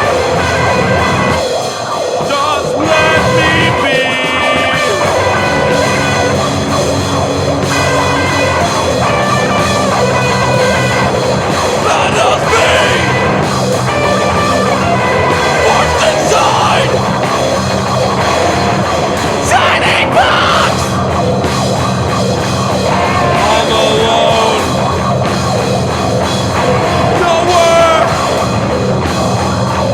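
Loud rock music with distorted guitars and a drum kit: an instrumental stretch of a grunge/punk song.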